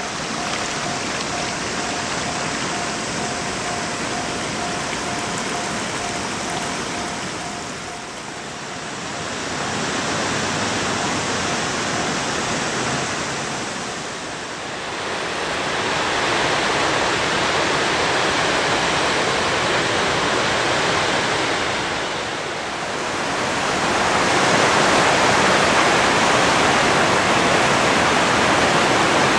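Steady rushing of a swollen, muddy river in full flood after torrential rain. It grows louder in steps and is loudest over the last few seconds.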